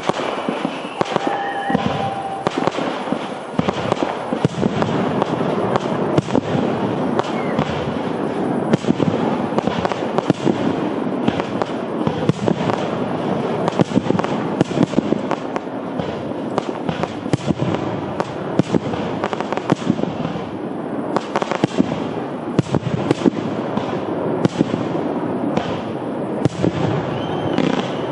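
Fireworks display: a dense, continuous barrage of rapid bangs and crackling from many shells and effects going off at once, with a brief whistle about two seconds in.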